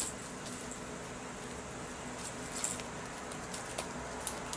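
Light, scattered taps and rustles as cats paw and bat a small fabric toy across a bamboo mat, over a steady background hiss.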